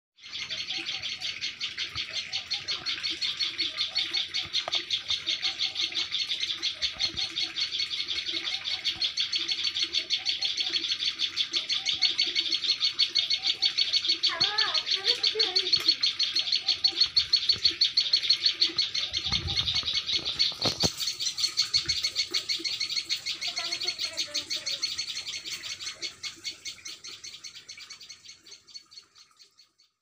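Small birds chirping rapidly and without a break in high, thin notes, with a brief separate gliding call near the middle. The chirping fades away near the end. A low thump comes a little past two-thirds of the way in.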